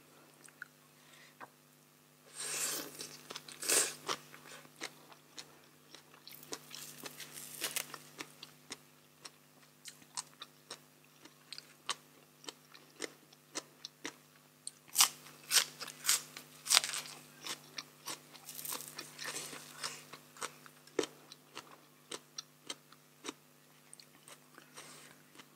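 Close-miked eating: irregular crisp crunches and wet chewing as mouthfuls of papaya salad and raw vegetables are bitten and chewed, with louder crunching bursts about three seconds in and again around the middle.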